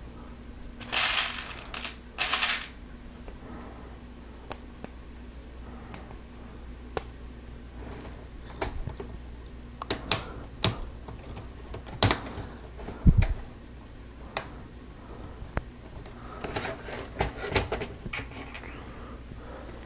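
Plastic Lego Technic parts clicking and snapping as pins and beams are pressed together, in scattered single clicks. Loose pieces rattle as they are rummaged and picked from a pile, briefly about a second in and again near the end, and a dull knock sounds about two-thirds through.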